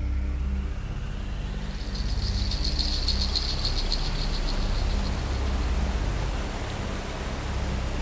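Hiss of a water-screen fountain spraying, swelling about a second in as the water curtain builds, over low sustained droning notes of an ambient show soundtrack. A high rapid flutter sounds from about two to five seconds in.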